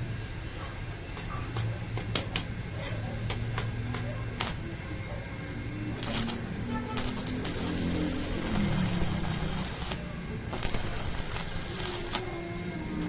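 Stick-welding arc from an MMA350 inverter welder, crackling and hissing in bursts of a few seconds, between sharp clicks, over a low steady hum.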